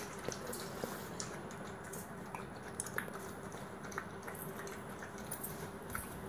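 Puppy eating wet, mushy food from a stainless steel bowl: steady wet lapping and chewing, dotted with small clicks.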